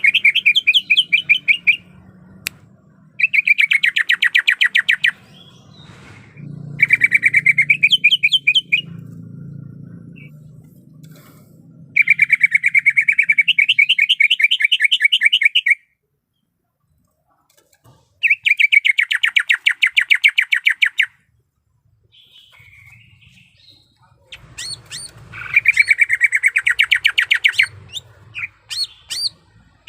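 Cucak ijo (green leafbird) calling in loud rapid trills of about two to four seconds each, six in all with pauses between them, followed by a few short single chirps near the end.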